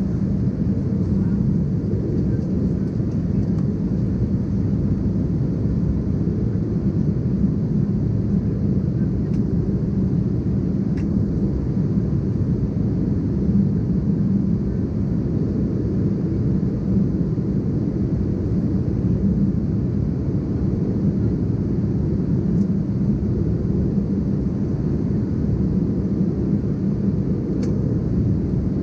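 Steady cabin noise of an Embraer ERJ-190 airliner in flight: its GE CF34-10E turbofans and the rushing airflow, heard from a window seat by the wing as a low, even drone.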